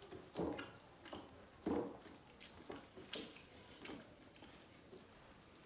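Wet, squelching sounds of dal bhat being eaten by hand: short, separate smacks and squishes, the loudest about half a second in and just under two seconds in, then fainter ones.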